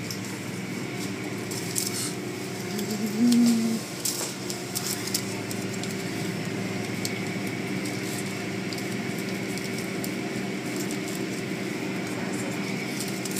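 Automatic car wash running: a steady machine hum with water spray and cloth brushes swishing over a car. A short, louder hum-like tone about three seconds in.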